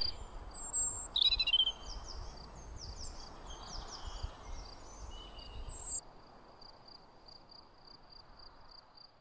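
Outdoor ambience: a cricket chirping steadily about three times a second, with short bird chirps over the first six seconds, the loudest about a second in. The soft background hiss drops away at about six seconds while the cricket goes on.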